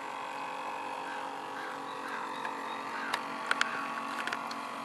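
A steady electrical hum made of several held tones, broken by a few sharp clicks a little past three seconds in and again around four seconds in.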